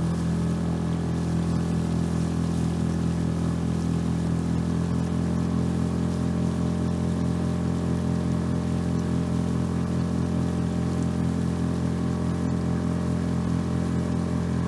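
6 hp Yamaha outboard motor running steadily at high throttle, driving an inflatable skiff at speed, with the hiss of water rushing past the hull.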